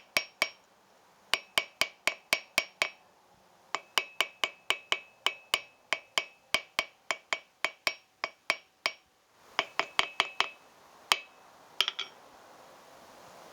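Hand hammer striking cold silver bar stock on an anvil, sharp ringing blows at about four a second in runs broken by short pauses, ending in a few spaced single and double blows.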